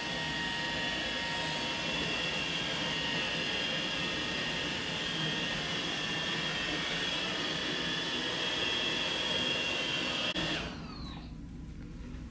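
iRobot Roomba 880 robot vacuum running with a steady whir and a high whine. About ten and a half seconds in, the whine falls in pitch and the sound drops as the motor winds down.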